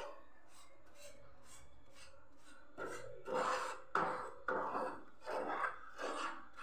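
A spatula scraping and stirring dry rice flour and powdered sugar in a nonstick frying pan: soft rasping strokes that start about halfway through and come about twice a second.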